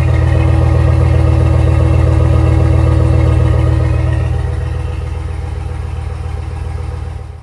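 Exhaust of a 2005 Chevrolet Silverado 1500's 5.3-litre V8 idling steadily, heard close at the tailpipe, with the engine still warming up after a cold start. It is loudest for the first four seconds or so, eases off after that, and cuts off abruptly at the end.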